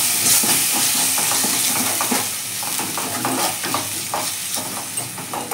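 Onions and freshly ground coconut masala paste sizzling in hot oil in a nonstick pan while a steel ladle stirs and scrapes them in quick, repeated strokes: the paste being fried through.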